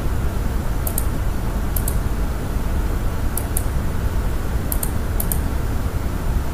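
Computer mouse clicking about five times, each click a quick press-and-release pair, over a steady low hum of background noise.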